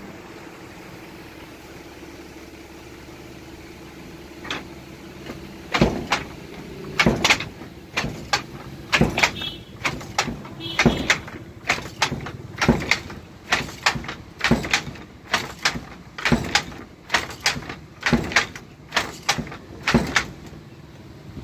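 Wooden handloom in use: sharp wooden clacks of the shuttle and beater in a steady rhythm, roughly two a second, starting about six seconds in.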